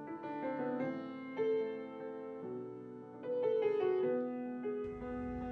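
Background music led by a keyboard, a slow melody of held notes changing pitch every half second or so.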